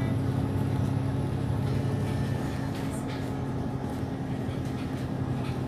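Steady low engine drone and road noise heard inside a moving double-decker bus.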